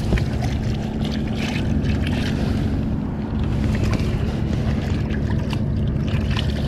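Wind rumbling steadily on a chest-worn camera's microphone, with jacket fabric rustling and scraping over it in short bursts.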